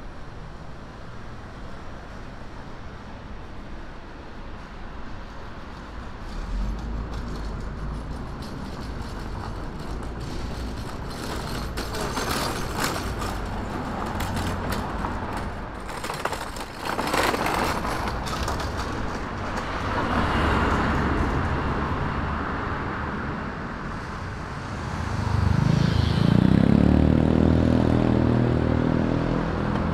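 City street traffic: cars passing with a steady hum. A stretch of rattling clicks comes in the middle, and near the end a vehicle engine pulls away loudly, its pitch rising as it accelerates.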